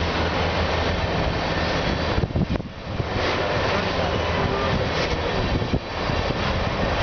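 Tank cars of a freight train rolling past close by: a steady rumble of steel wheels on rail.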